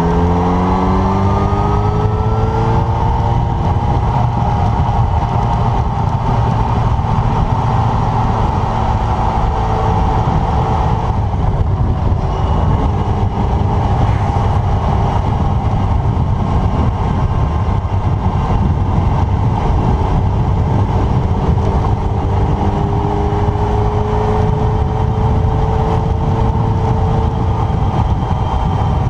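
Motorcycle engine pulling up through the revs as the bike accelerates, then running at a steady cruise with another slow rise near the end. Heavy wind rumble from riding speed on the camera's microphone throughout.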